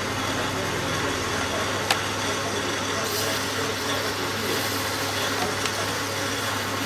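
Manual metal lathe running under cut, a steady motor hum under the scraping noise of the tool cutting a metal nut. A sharp click about two seconds in, and a hiss from about three seconds in as coolant is applied to the hot cut and it smokes.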